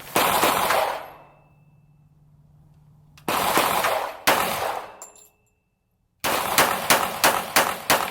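FN FNX-45 .45 ACP pistol firing. One shot just after the start, two shots about a second apart around three seconds in, then a fast string of shots about three a second from about six seconds in.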